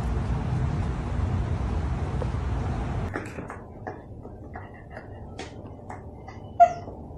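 Low rumbling background noise. After about three seconds it gives way to a run of light, irregular taps and clicks on a hard tiled floor, with one louder, sharp click near the end.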